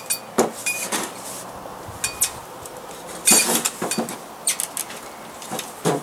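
Irregular light metallic clinks and taps from a kerosene heater's metal wick holder being handled while a new wick is worked onto it, with a quick cluster of knocks about halfway through.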